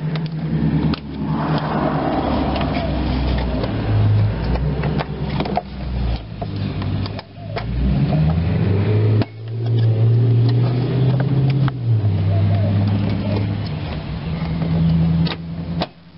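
Plastic interior trim panels being pulled off by hand, their retaining clips clicking and snapping loose now and then. Under them runs a loud low hum that holds one pitch for a few seconds and then jumps to another.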